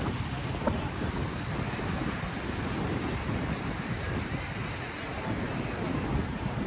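Steady rushing noise of wind and sea surf.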